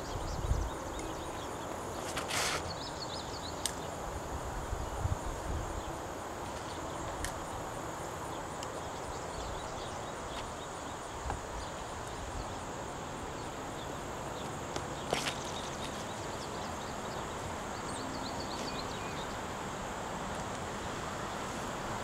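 Outdoor ambience: a steady high insect drone over a low, even background noise. Sharp clicks stand out twice, once about two and a half seconds in and once about fifteen seconds in.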